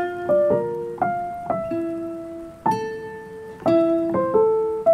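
Background piano music: a slow, gentle melody of single notes, each struck, ringing and fading, about two a second.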